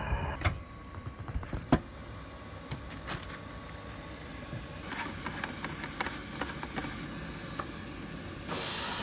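Diesel air heater starting up: scattered clicks and knocks over a low hum, then about eight seconds in a steady fan rush comes on and holds.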